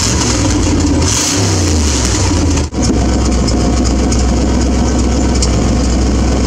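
Chevy 350 V8 running with the transmission and clutch removed and a leaky, partly fitted exhaust. It revs and falls back, then settles into a steady idle. It runs without the knocking heard before and sounds good, which points the noise to the clutch side.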